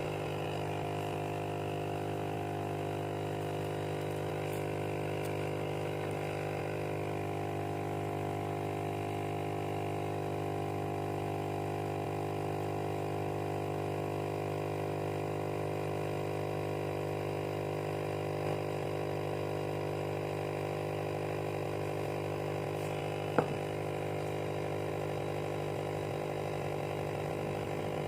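Small electric motor running with a steady hum, and a single sharp click about 23 seconds in.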